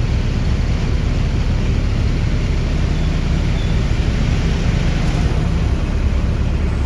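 Mitsubishi bus engine running steadily under way, heard from inside the passenger cabin with road noise.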